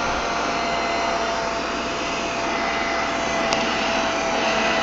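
Vacuum cleaner running steadily with a constant whine as its nozzle sucks up spilled bedding and food from carpet. It picks up only a little at a time, which the owner puts down to a full dust bin that needs emptying.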